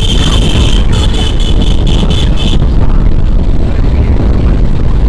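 Heavy wind rumble on the microphone and road noise from riding in a moving vehicle, with a shrill high tone that cuts in and out and stops about two and a half seconds in.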